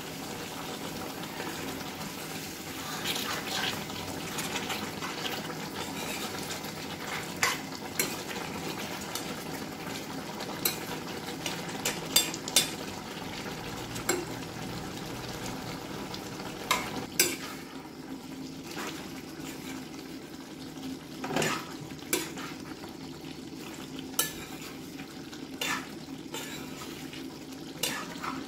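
Chicken and jackfruit curry simmering and sizzling in a cast-iron kadai while a spatula stirs it, with scattered sharp knocks and scrapes of the spatula against the pan.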